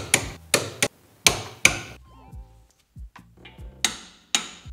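Sharp metallic clicks from a hand ratchet wrench tightening coilover mounting nuts: about five in quick succession in the first two seconds, then two more near the end.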